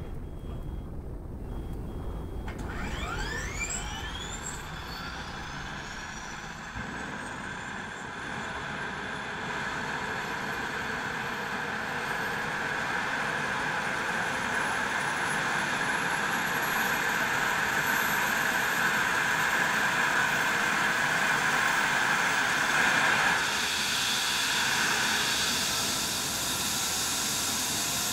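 Eurocopter EC135 rescue helicopter's twin turbine engines starting up for an emergency launch. A few seconds in, a whine begins rising steadily in pitch under a building rush of turbine noise, growing louder as the engines and rotor spool up.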